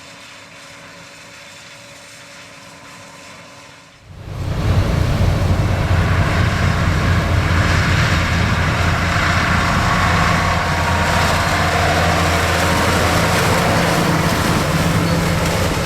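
John Deere 9610 combine running steadily while harvesting corn: a steady low engine note with machinery noise. Faint for about the first four seconds, then suddenly much louder and closer, and steady from there on.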